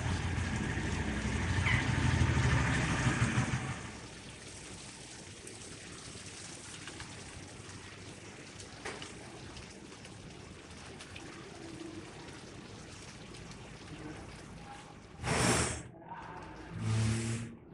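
A motor vehicle running past for the first few seconds, a low rumble that fades out. After that there is a quieter background, broken near the end by two short loud noises about a second and a half apart.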